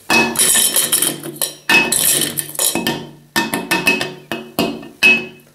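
A 100 g Dove Beauty Cream Bar knocked and scraped against a dry ceramic washbasin: a rapid series of sharp knocks and clicks in several runs, a few of them leaving a brief clear ring from the basin.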